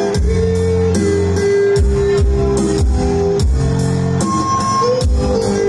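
Music with a steady drum beat, guitar and bass.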